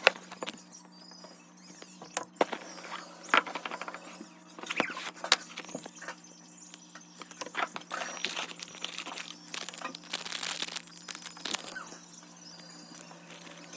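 Packaging of a Pokémon trading card box being handled and opened: scattered crinkles, taps and clicks of plastic wrap and cardboard, over a steady low hum.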